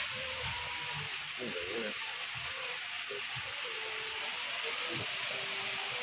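Steady hiss of a garden fog-misting system spraying fine water mist through the plants, with faint voices in the distance.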